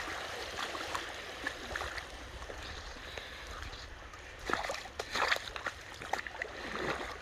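Shallow creek water running steadily, with a few louder splashes in the water around the middle.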